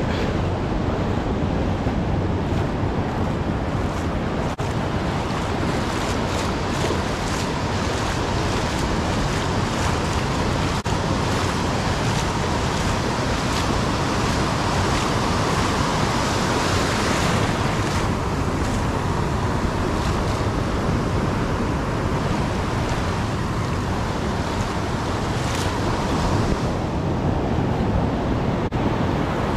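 Ocean surf washing up the beach and breaking, a steady rush of water, with wind on the microphone.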